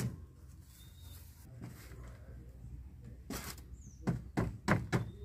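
Hammer striking a wooden board being nailed to the coop frame: one knock right at the start, then a quick run of about five blows near the end, roughly three a second.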